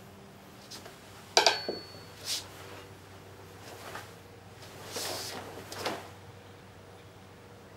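A steel sai clanks once with a short metallic ring about a second and a half in, the loudest sound. A few swishes follow as the sai are swung and the karate gi moves.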